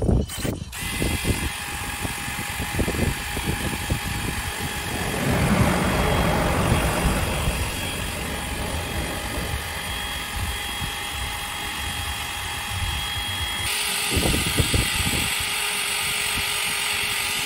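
Cordless drill spinning a wire brush against a steel boat handrail, scouring paint and rust back to bare steel: a steady motor whine under a harsh scratching. The scratching grows louder and brighter about three-quarters of the way through.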